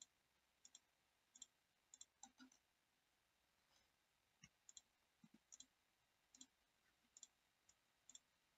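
Faint computer mouse clicks at irregular intervals, many in quick pairs: corners being picked one after another in CAD software.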